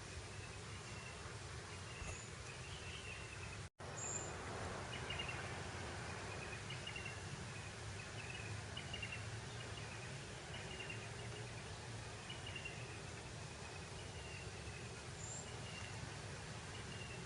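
Breeze blowing over open grassland as a steady, soft rush, with short high chirps repeating about once a second. The sound cuts out for an instant about four seconds in.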